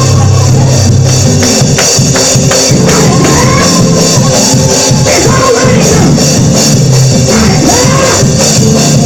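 Loud up-tempo church praise music, with drums and tambourine keeping a steady beat under pitched melody lines.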